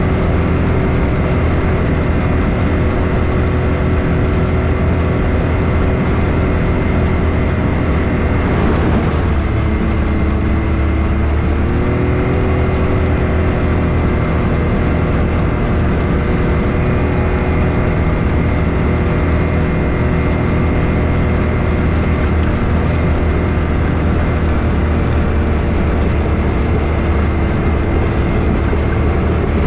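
Can-Am Maverick X3 side-by-side's turbocharged three-cylinder engine running steadily while under way, dropping in engine speed about nine seconds in and picking back up a few seconds later.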